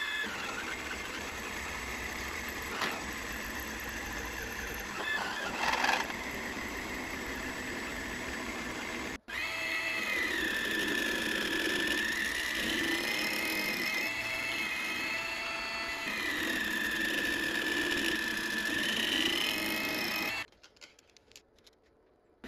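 Proxxon MF70 mini mill running, an end mill cutting an aluminium plate. After a break at about nine seconds a larger face-milling cutter takes passes across the plate, its spindle whine sagging and recovering in pitch as it loads up. The mill stops shortly before the end.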